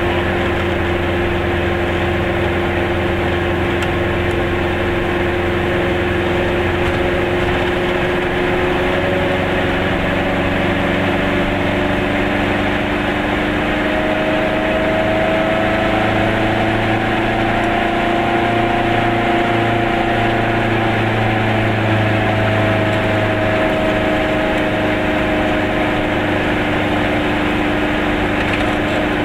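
Car engine running and tyre noise on the road, heard from inside the cabin while driving at a steady speed. The engine note drifts slightly up and down.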